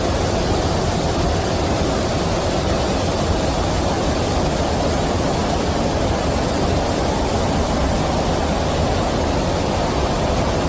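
Flash-flood water rushing through a street in a heavy torrent: a steady, loud rush of water with no breaks.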